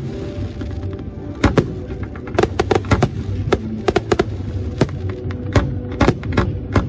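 Aerial fireworks shells bursting in rapid, irregular bangs, some in quick clusters, with music playing underneath.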